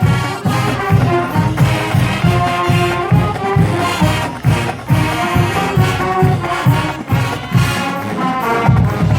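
Marching band playing: brass and trombones carry the tune over a steady drum beat.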